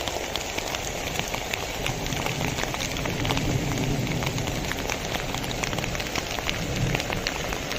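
Heavy rain falling in a dense, steady patter of drops.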